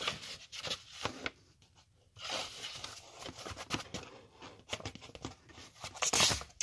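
Paper envelope rustling and crinkling as it is handled, in a series of scratchy bursts, with the loudest one near the end.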